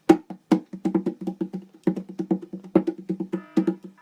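Music of quick, pitched wood-block-like percussive notes, with a sustained chord coming in about three and a half seconds in.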